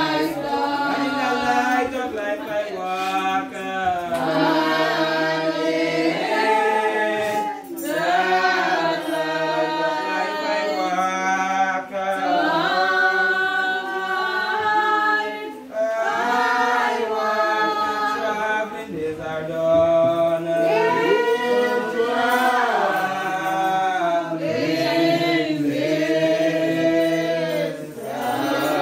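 Church congregation singing a slow hymn together in long, drawn-out phrases.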